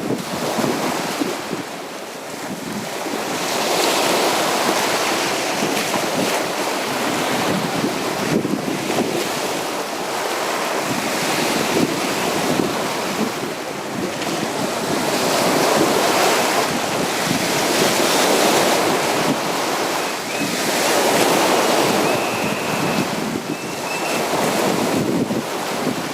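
Sea waves breaking and washing onto a beach, the surf swelling and falling every few seconds.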